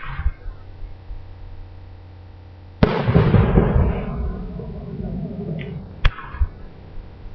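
Aerial firework shells bursting: a sharp bang right at the start with a brief crackle, a loud boom about three seconds in that rumbles away over about two seconds, and another sharp bang about six seconds in.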